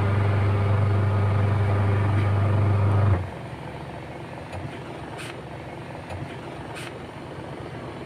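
Twin-tub washing machine's belt-driven wash motor running with a loud, steady low hum. The hum cuts off suddenly about three seconds in, leaving a quieter steady running sound. The motor is running properly after the repair.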